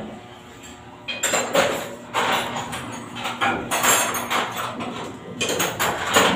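Irregular metallic clanking and clattering in uneven bunches, starting about a second in, from metal parts or tools being handled on the auxiliary engine.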